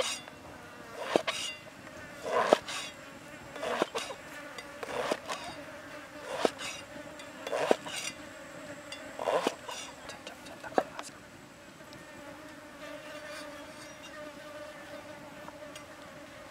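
Steel cleaver slicing through a firm white vegetable and knocking on a wooden chopping block, about one chop every second and a half, nine times, stopping about eleven seconds in. Insects buzz steadily underneath and are clearer once the chopping stops.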